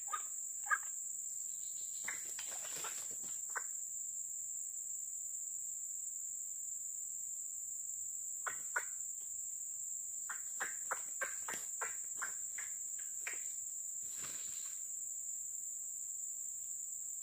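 Insects droning steadily at one high pitch. Two spells of short crackling clicks come over it, in the first few seconds and again through the middle, with a brief rustle near the end; these are dry leaf litter being crunched and disturbed.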